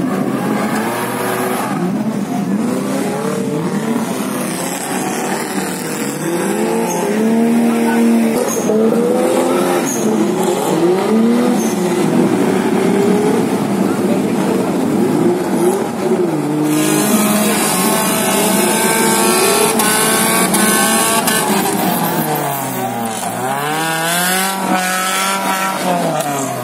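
Off-road 4x4 engines revving hard while working through mud, the pitch swinging up and down again and again, with one deep drop and climb near the end. Onlookers' voices are heard over the engines.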